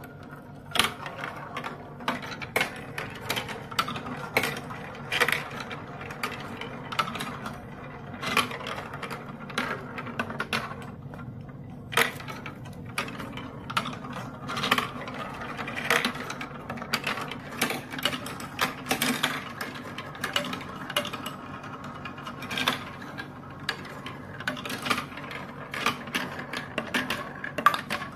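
Marbles rolling through a plastic building-block marble run: a continuous rolling rumble along the tracks and funnels, broken by frequent irregular clicks and knocks as the balls drop and strike the plastic pieces.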